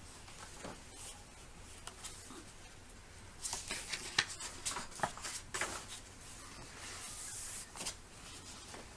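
Paper pages of a picture book being turned by hand: a run of crackling and rustling about halfway through, then a softer sliding swish of paper near the end.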